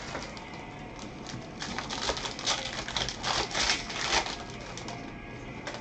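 Foil wrappers of Bowman baseball card packs crinkling and tearing in gloved hands as the packs are opened. The crackles come in quick clusters, thickest through the middle of the stretch.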